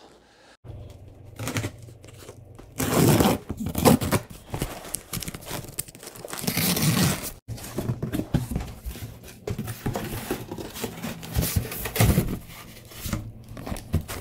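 A cardboard shipping box being opened: tape and cardboard tearing in several rips, the loudest about three seconds in and again about six to seven seconds in, then flaps scraping open and crumpled packing paper rustling.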